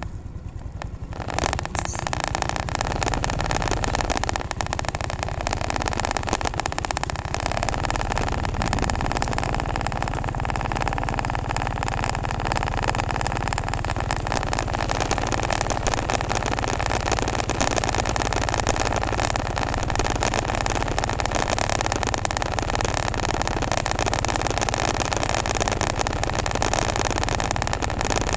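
Steady rush of wind over the microphone, mixed with the running of a Honda Revo Fi single-cylinder motorcycle while it rides along. The noise sets in about a second and a half in and stays even.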